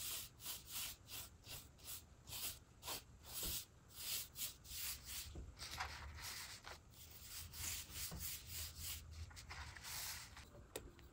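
Wood being sanded by hand with quick back-and-forth rubbing strokes, about three a second, growing irregular and stopping shortly before the end.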